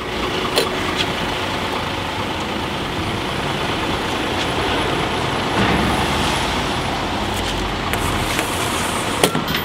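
City bus engine running close by, a steady engine and traffic noise with no letup.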